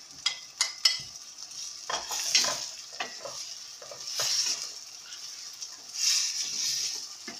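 Chopped green pepper and carrots frying in butter with onions and tomatoes in a stainless steel pan: a steady sizzle that swells as a wooden spoon stirs and scrapes them round, with a few sharp clicks in the first second.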